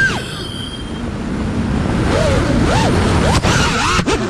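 FPV quadcopter's brushless motors in freestyle flight: a high whine drops sharply in pitch at the start as the throttle is cut, then wind rush with the motors' pitch swooping up and down in short arcs as the throttle is blipped.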